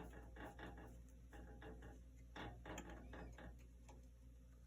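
Faint, scattered clicks and light taps of metal parts being handled on a bandsaw while a new blade is fitted.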